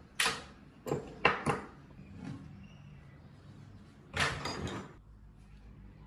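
Sharp knocks and clatters of metal parts and tools being handled and set down on a wooden workbench: four quick knocks in the first second and a half, then a short rattling clatter about four seconds in.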